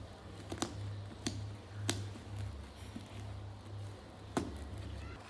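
Sharp clicks and taps of hand tools working on a bag zip, about five of them spaced a little over half a second apart, over a low steady hum.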